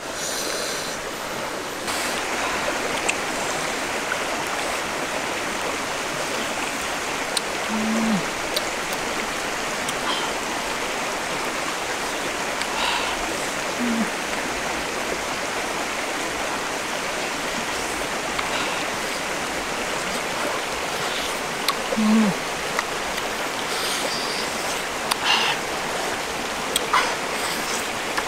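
Rocky jungle stream running steadily. A few short low hums and faint mouth clicks from someone eating come through now and then.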